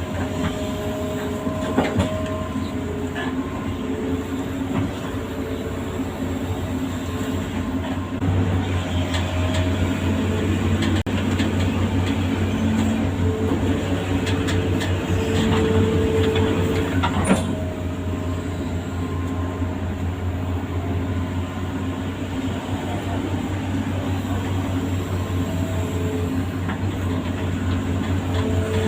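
Amphibious excavator's diesel engine running under working load: a steady deep drone with whining hydraulic tones that shift in pitch. The drone grows louder from about a third of the way in until a little past halfway, and two sharp metallic knocks stand out, one near the start and one just past halfway.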